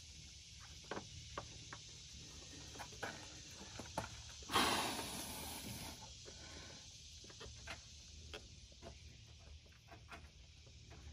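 A spin-on fuel filter canister being handled and threaded onto its head, giving scattered small clicks and taps, over a low steady hum. A sudden brief rushing hiss comes just before the middle and fades over a second or so.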